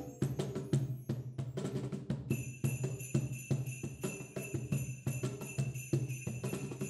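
Percussion ensemble playing a Christmas arrangement: a marimba holds low notes over a steady cajon beat. Sleigh bells join in about two seconds in and keep shaking.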